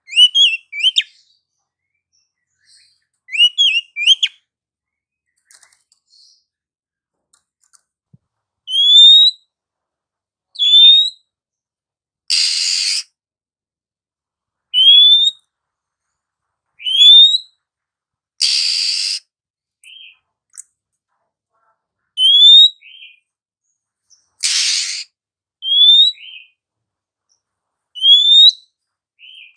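Female Oriental magpie-robin calling: short rising whistles, mostly in pairs about every two seconds, broken about every six seconds by a harsh rasping call. The quick chirps at the start come in tight clusters.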